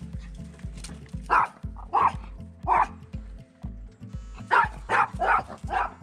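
A dog barking about seven times: three spaced barks, then a quick run of four near the end, over a continuous low pulsing rumble.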